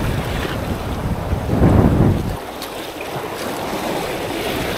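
Wind buffeting the microphone over waves surging on the shore. The low rumble swells into a stronger gust near two seconds in, then drops away suddenly, leaving a lighter hiss of wind and surf.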